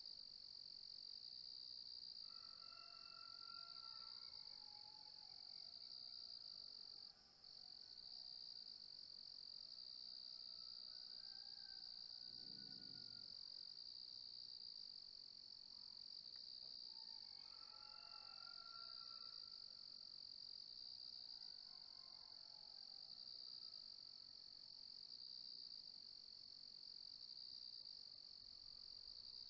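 Faint, steady chorus of crickets chirring at night, with a brief dip about seven seconds in. Distant dogs can be heard faintly a few seconds in and again just past halfway.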